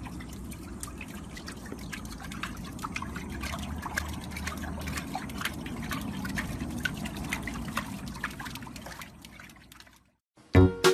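Water splashing and dripping in a plastic paddling pool, stirred by a small chihuahua paddling its legs: a steady run of small, irregular splashes that fades out near the end.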